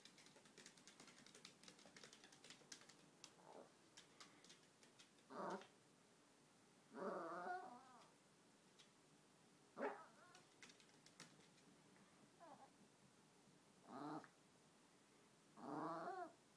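Chihuahua vocalizing in about six short, whiny grumbling calls that waver in pitch, the longest lasting about a second. Light clicks patter through the first few seconds.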